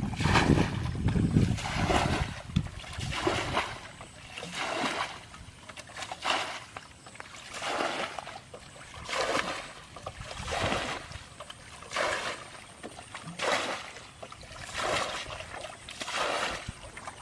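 Water splashing and sloshing in a steady rhythm, one swell about every second and a half.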